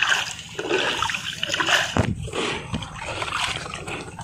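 Shallow water and wet sand splashing and sloshing as hands dig for paros shellfish, with a sharp knock about two seconds in.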